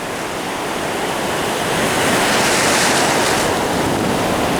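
Ocean surf: waves breaking and washing in along the shore, a steady rush that swells louder about two seconds in and eases back near the end.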